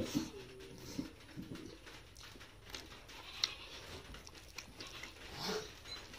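Close-up chewing and lip-smacking of a handful of rice and curry eaten by hand, irregular wet clicks and smacks, with soft squishes of fingers kneading rice into the curry on a steel plate.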